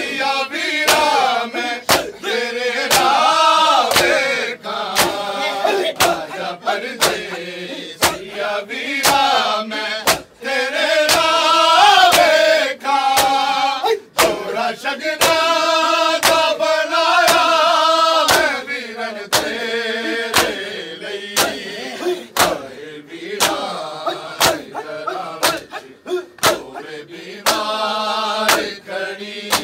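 Many men chanting a Punjabi noha (mourning lament) together, over a steady beat of sharp slaps from hand matam, palms striking bare chests in time.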